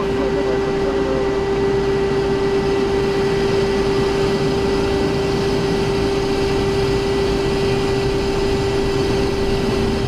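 Cessna Citation XLS's twin turbofan engines running steadily, heard inside the cockpit as a loud, even rush with a constant low hum.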